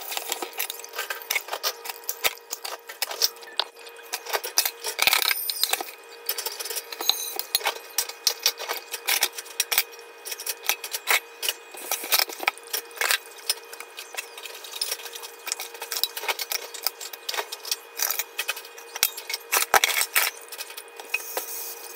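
Dishes, glasses and cutlery clinking and clattering again and again as they are handled at a kitchen sink, over a steady hum.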